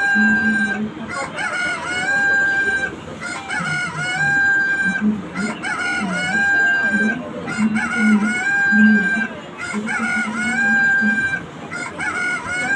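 A rooster-crow alarm sound: the crow repeats over and over, about one every two seconds, each ending in a long held high note.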